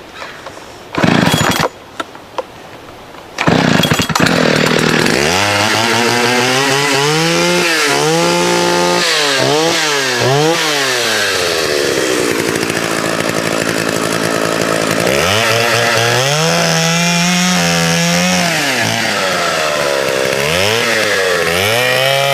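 A vintage 1979 Partner S-55 two-stroke chainsaw starts up after a short first burst. It then runs with its engine pitch rising and falling again and again as it revs and cuts into broken, rotten tree wood.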